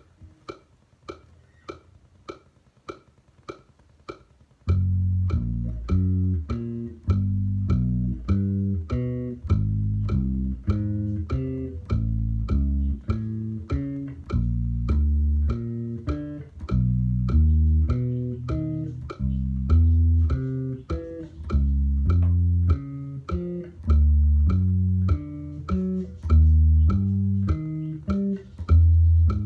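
A metronome clicking at about 100 beats a minute. About five seconds in, a bass guitar joins it, playing single low notes, one on each click: a fretting-hand finger drill with the fingering 2-1-4-3.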